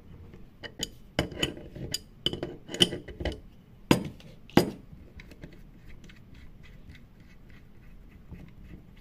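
Metal wrench clinking against a valve's brass packing nut as the nut is loosened and taken off the valve stem: a string of sharp metallic clinks, the two loudest a little past the middle, then only faint small taps.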